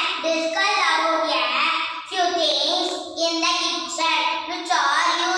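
A young boy singing alone, in phrases of about a second each.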